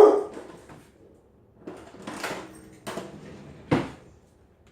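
Household objects being handled and knocked about: a loud thump at the start, a stretch of scraping and rattling about two seconds in, a sharp click, then a second thump.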